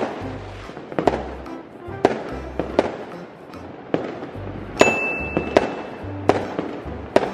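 Fireworks going off in a string of sharp bangs, about one a second, with background music and a steady bass under them.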